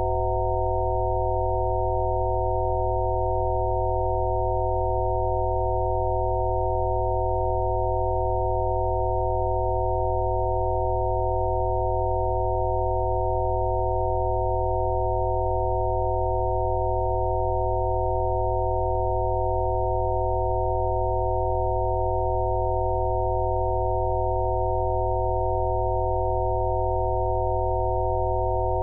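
Synthesised Rife-frequency sine tones: several steady electronic pure tones sounding together at fixed pitches, with a low steady hum beneath, unchanging throughout.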